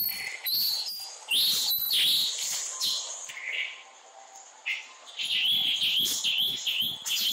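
Birds chirping: short whistled notes and quick rising and falling calls, with a run of rapid repeated notes in the second half.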